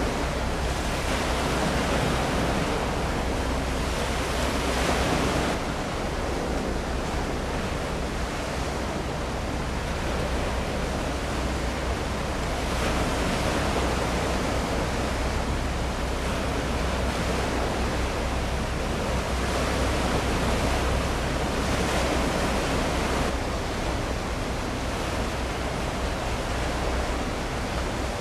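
Steady rush of wind and water along the shore, an even noise with a low rumble underneath that shifts slightly in level a few times.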